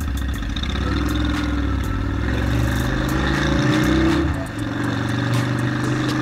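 Suzuki Steed 400's V-twin engine pulling away on a ride, its note rising steadily for a few seconds, dropping sharply about four seconds in as it shifts up a gear, then running steadily.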